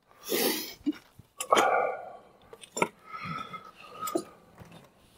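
Knocks and clinks from a wooden ladder being climbed with tools in hand: a few sharp knocks about a second and a half apart, with a short hiss near the start.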